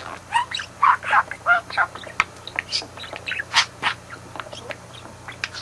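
Budgerigar chattering and warbling: a rapid, unbroken run of short chirps and squawky notes.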